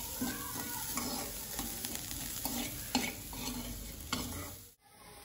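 Steel spoon scraping and stirring chopped onion around a dry non-stick kadai, over a light sizzle as the salted onion roasts without oil. The sound drops out briefly near the end and comes back quieter.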